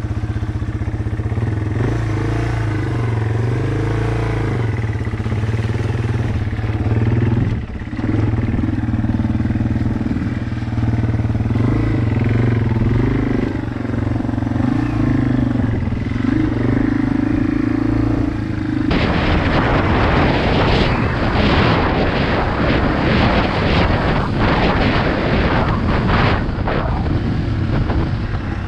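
Yamaha TW200's air-cooled single-cylinder four-stroke engine running under way, its pitch rising and falling as the throttle is worked. About two thirds in, a loud rushing noise suddenly comes up over the engine.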